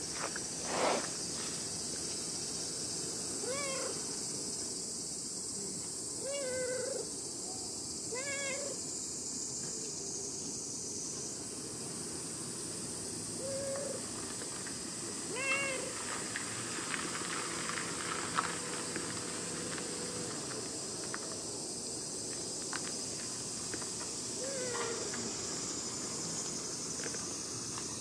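A cat meowing in short calls every few seconds, about six in all, each rising and falling in pitch. A steady high insect drone runs underneath, and there is a brief thump about a second in.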